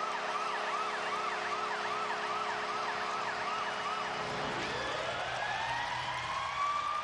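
Arena goal siren celebrating a home goal, sounding over a cheering crowd: first a fast, even warble, then about four and a half seconds in a second siren winds up from low to high and holds.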